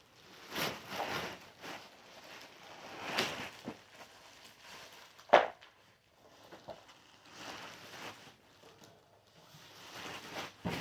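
Handling noises: scattered rustling and scraping, with one sharp knock about five seconds in.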